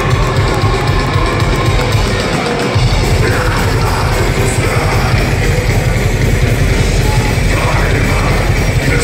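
Live heavy metal band playing loud, with drums, amplified guitars and a vocalist singing into the microphone. The low end briefly drops away almost three seconds in, then comes back in full.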